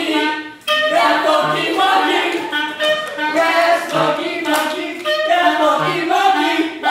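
Clarinet playing a lively pop melody, with a short break just after the start.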